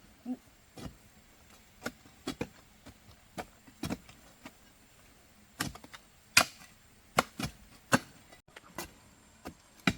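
Irregular, sharp chopping strikes of a hand hoe biting into earth, about one to two a second, some much louder than others.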